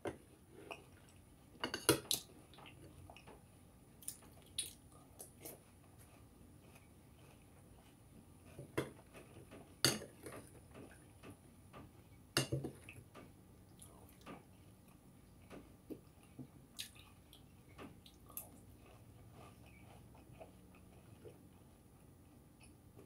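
Spoon clicking against a bowl of crunchy cereal in sharp, irregular taps, with chewing crackles between them.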